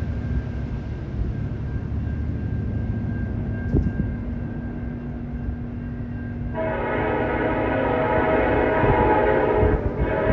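Horn of a CN freight locomotive sounding a long blast from about two-thirds of the way in, breaking off briefly near the end and starting again. Before it, a low rumble from the approaching train mixed with wind buffeting the microphone.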